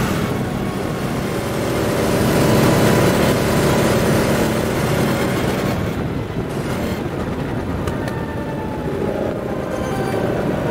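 Go-kart engine running at speed with heavy wind rush on the onboard microphone. About six seconds in the wind noise eases and the engine note is clearer, sliding down in pitch near the end.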